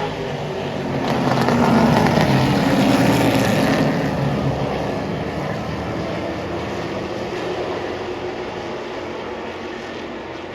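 A pack of street stock race cars under full throttle on a restart, their engines massed together. The sound swells as the field goes by in the first few seconds, then slowly fades as the cars move away around the track.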